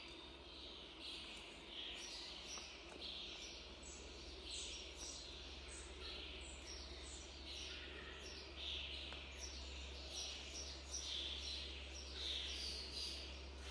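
Small birds chirping over and over, several short calls a second, with a steady low rumble underneath.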